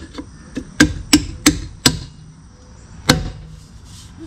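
Dog-dish hubcap being smacked on by hand onto a steel wheel: four sharp whacks about a third of a second apart, then one more about three seconds in.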